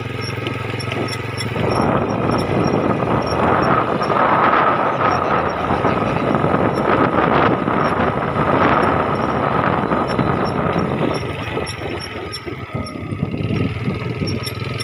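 Motorcycle engine running while riding along a dirt track, under a steady rushing noise that grows louder about two seconds in.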